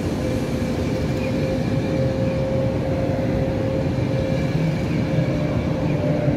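Hungarian MÁV-START passenger coaches of a EuroCity train rolling past: a steady rumble of wheels on rail, with a steady tone running over it.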